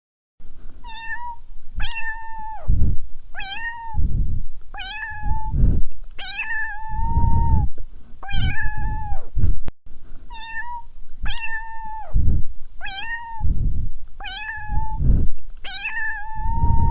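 A cat meowing over and over, about a dozen short, high, level-pitched meows roughly a second apart, with a low rumbling noise under each call.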